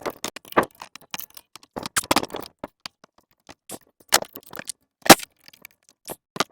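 Irregular sharp metal clicks, knocks and scrapes as a rusted, seized exhaust brake is handled and worked at, the parts refusing to come apart.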